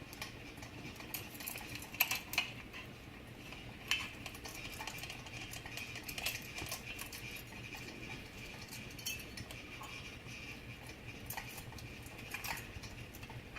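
Metal pull chains and light-switch parts of a 1990 Home Trends ceiling fan clinking and clicking as they are handled, over the fan motor's steady hum.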